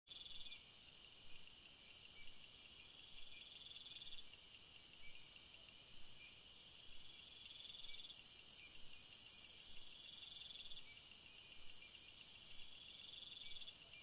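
Forest ambience of high-pitched animal calls: several trills and evenly repeated chirps overlap. A shrill buzzing trill grows louder about eight seconds in and drops back about twelve and a half seconds in.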